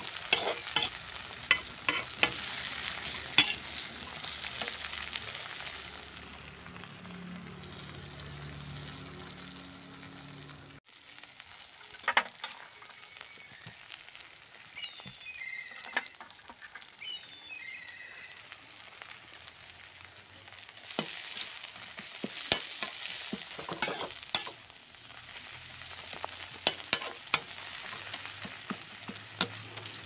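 Fenugreek leaves sizzling in a metal wok over a charcoal fire while a perforated metal slotted spoon stirs them, scraping and clicking against the pan in repeated bursts.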